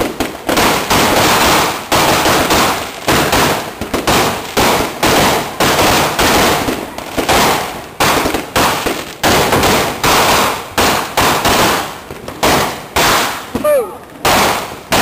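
Fireworks going off in a rapid, nearly unbroken string of sharp bangs, several a second, with aerial shells bursting overhead.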